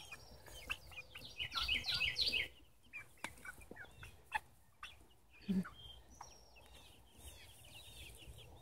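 A small flock of young hens, not yet laying, clucking and chirping in short calls, with a busy flurry about two seconds in. A few sharp clicks and a low thump about five and a half seconds in are heard among the calls.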